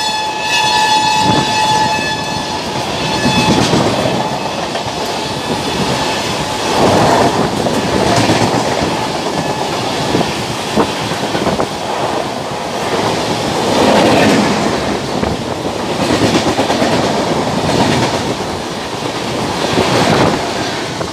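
A train horn dies away in the first two seconds, then the coaches of an express passenger train rush past at speed, the wheels running over the rails in a loud rushing rumble that swells and eases every few seconds.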